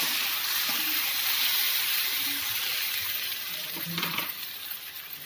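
Chopped onions and tomatoes sizzling in oil in a black wok as a spatula stirs them; the hiss slowly fades, with a short knock about four seconds in.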